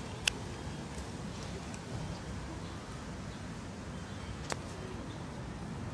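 A kitten chewing dry kibble, with two sharp crunches, one just after the start and another about four and a half seconds in, over a steady low outdoor rumble.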